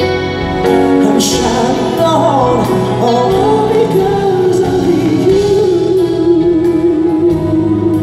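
Live singing over a band with piano: a descending vocal run about two seconds in, then a long held note with vibrato.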